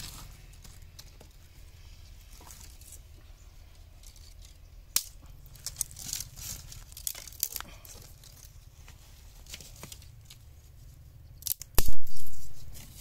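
Dry sticks and twigs being snapped and rustled while they are laid as kindling in a brick cooking stove: scattered small cracks and crackles around the middle, then one louder crack-and-rustle near the end.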